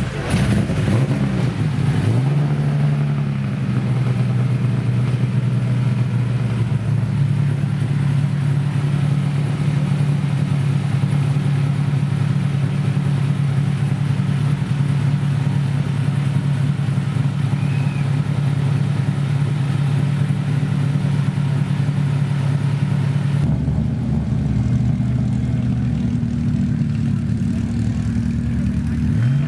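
Historic racing car's engine running at a loud, steady idle, with a quick rise in revs about two seconds in. About 23 seconds in the sound changes abruptly to another engine running.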